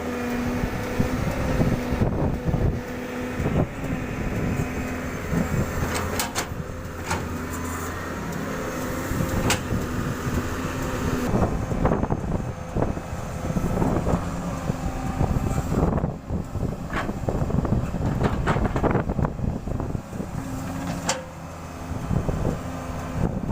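Doosan 140 excavator's diesel engine working hard, its note shifting about halfway through and again near the end, with several sharp clanks.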